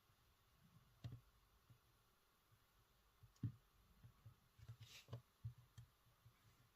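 Faint, scattered taps and soft knocks of hands and sculpting tools working plasticine on a work surface, with a brief scrape a little before the two-thirds mark.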